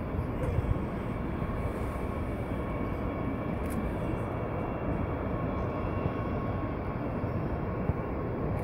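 Distant Antonov An-225 taxiing, its six turbofan engines giving a steady whine over a rough, rushing rumble.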